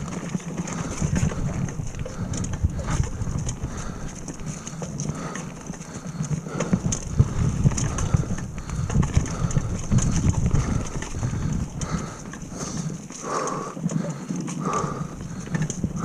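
Retro downhill mountain bike rolling fast over a leaf-covered dirt trail: tyres running over leaves and dirt while the bike rattles and knocks over bumps and roots, with wind rumble on the microphone.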